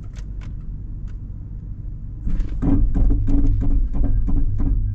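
Toyota Land Cruiser 200 Series rumbling in low-speed crawl control. From about two seconds in, a rhythmic knocking pulse about four times a second sets in, the crawl control system pulsing the brakes.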